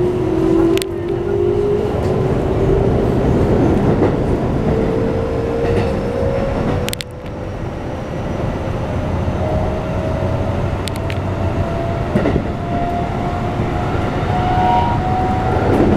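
Keikyu New 1000 series train's Toyo Denki IGBT-VVVF inverter and traction motors whining, heard inside the passenger car. The pitch rises steadily as the train accelerates, over the rumble of the wheels on the rails, with a few sharp clicks.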